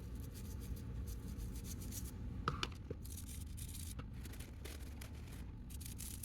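Light scraping and rustling of hand work on a small object, with scattered small clicks and one sharper click about two and a half seconds in, over a steady low hum.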